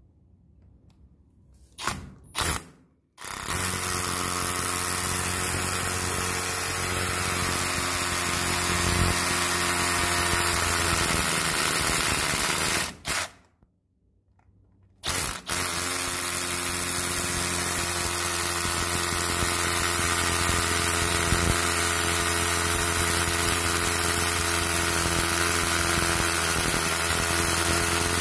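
Milwaukee M12 cordless rotary hammer running in long steady bursts. Two quick blips of the trigger come first. It then runs for about nine seconds, stops, and gives a short blip. After a pause of about two seconds it starts again and keeps running.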